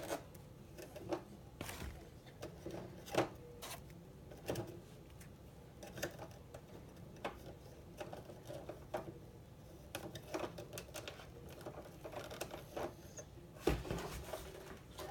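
Irregular plastic clicks and knocks from handling a Nerf Rival blaster while trying to load a foam round into it.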